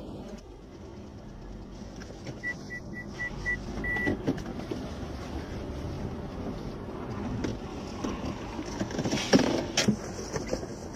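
Steady low rumble of a car's idling engine inside the cabin. About two and a half seconds in, five short high beeps are followed by one longer beep. A cluster of loud thumps comes about nine seconds in.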